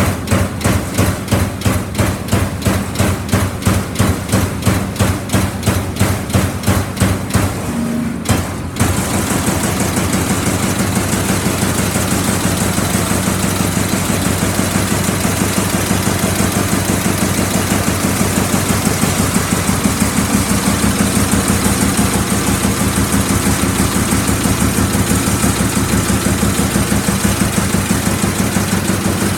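Amada Pega 357 CNC turret punch press punching sheet metal. It strikes at about three hits a second, then from about eight and a half seconds in runs into a much faster, steady stream of strokes over the machine's running hum.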